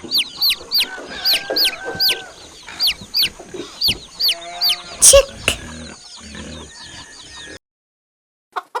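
Domestic chicks peeping: a fast run of short, high-pitched calls that each fall in pitch, about three a second, growing fainter after the middle and stopping about a second before the end. A few short calls start again right at the end.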